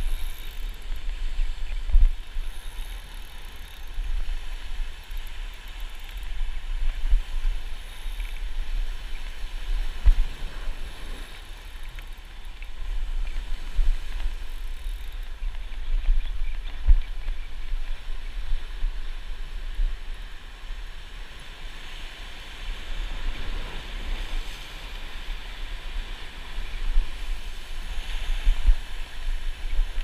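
Ocean surf washing over shoreline rocks, a steady hiss, with wind gusting on the microphone in uneven low rumbles.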